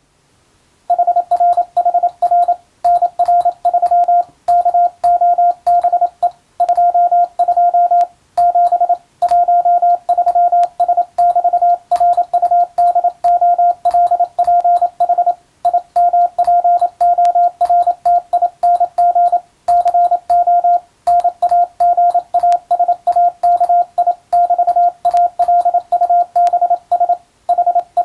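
Morse code sent by hand on a telegraph key, heard as a steady mid-pitched beep keyed in fast dots and dashes with short pauses between words. It starts about a second in. The text is an English-language radiotelegram, sent at radio-operator exam practice speed.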